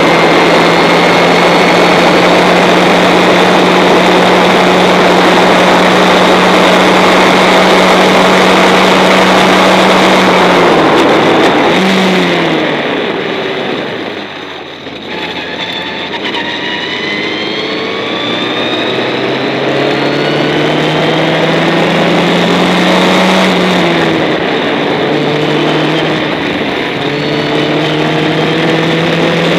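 Formula Ford 1600 single-seater's four-cylinder engine heard from onboard: a steady high note at full throttle, then quick downshifts about eleven seconds in and a lift off the throttle that drops the sound away briefly. It then pulls hard again, pitch rising through the gears, with another downshift and pull-away near the end.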